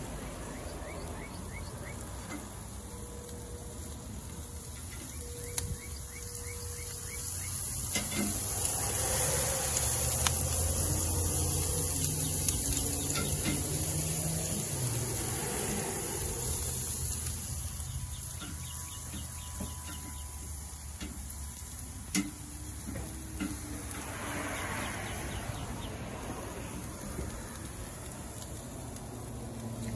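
Chicken breasts sizzling on a hot kamado grill grate, with a few sharp clicks of metal tongs against the cast iron grate as the pieces are turned. A low rumble swells up and fades away in the middle.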